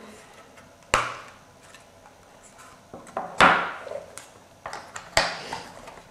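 Plastic LEGO bricks being handled and pressed onto a model on a wooden tabletop: three main sharp clicks and knocks, about a second in, about three and a half seconds in (the loudest) and about five seconds in, with smaller ticks between.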